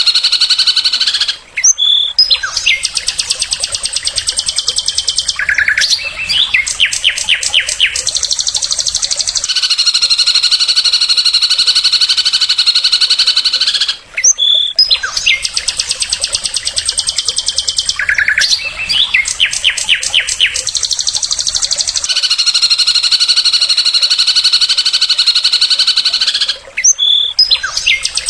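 Songbird singing: a long, high, rapid buzzing trill held for several seconds, broken by a short run of sharp separate notes. The same phrase comes round about every 13 seconds, three times.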